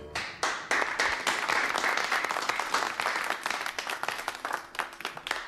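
A group of people applauding, a dense patter of hand claps that builds within the first second and thins out near the end.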